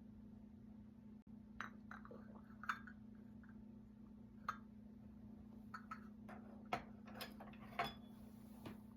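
Light clinks and taps of a china teacup being handled and set on its saucer, about ten short sharp strikes spread unevenly, the loudest near the middle and towards the end, over a low steady hum.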